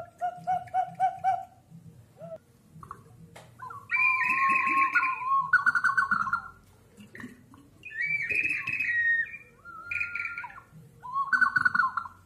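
Ceramic water whistling vessels sounding bird-like calls: a run of about six short hoots, then several warbling, chirping whistles, each burst a second or two long.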